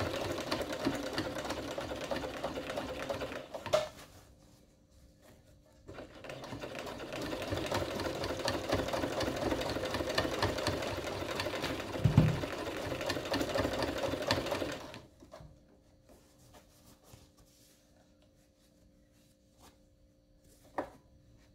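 Electric household sewing machine stitching through a thick, layered cotton seam, run at a gentle pace so the needle does not break. It runs about four seconds, pauses, runs again for about nine seconds with one low thump partway through, then stops, leaving a faint steady hum and a click near the end.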